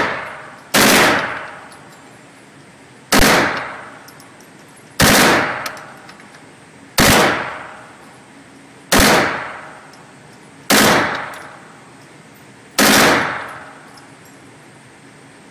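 An MP5 submachine gun firing deliberate single shots in an indoor range: seven shots about two seconds apart, each a sharp crack that rings off the walls for about a second.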